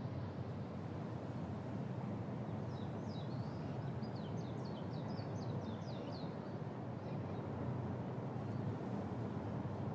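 Steady low outdoor rumble. Over it, a bird sings a rapid run of a dozen or so short, falling chirps, starting about three seconds in and stopping about three and a half seconds later.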